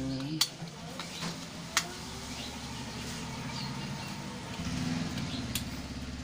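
Sharp snaps of plastic clips as a smartphone's back midframe cover is pried off with metal tweezers: two distinct clicks about a second and a half apart, over a steady low hum.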